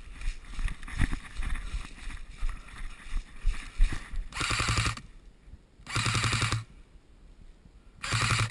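Airsoft MP5 electric gun (ASG) firing three bursts of full-auto, each a rapid, even rattle with a motor hum, the first about halfway in and the last near the end. Before them come irregular rustling and knocks.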